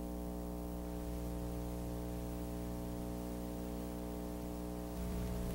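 Steady electrical mains hum with a stack of overtones, under a faint even hiss, from the recording equipment.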